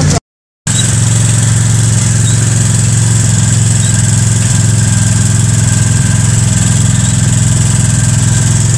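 Polaris RZR side-by-side engine running at a steady speed, with a thin steady high whine over it, after a brief break in the sound near the start.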